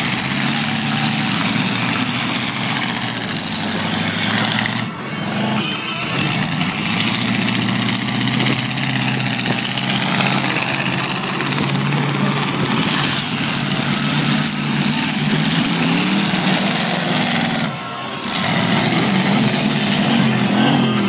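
Several demolition derby cars' engines running and revving at once, their pitch rising and falling over a loud, constant din, briefly dropping away twice.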